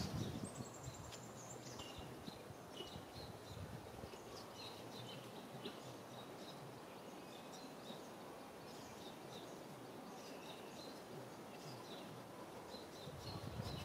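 Faint outdoor ambience with scattered short, high bird chirps, and a thin high trill near the start.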